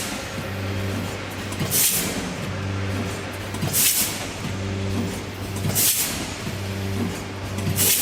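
Rotary pre-made-pouch packaging machine running with a steady motor hum, and a sharp pneumatic air-exhaust hiss about every two seconds as it indexes through its fill-and-seal cycle, four times here.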